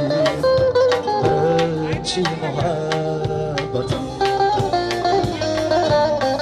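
Live band playing an instrumental break between sung lines of an Uzbek pop song: a keyboard synthesizer melody over a steady drum beat, heard through PA speakers.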